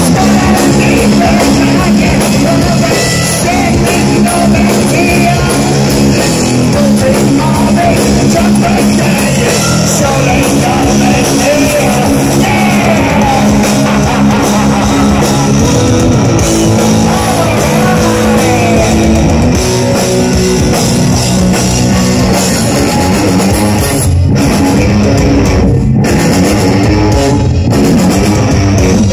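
A heavy metal band playing live and loud: electric guitar riffs over a rock drum kit, with sung vocals.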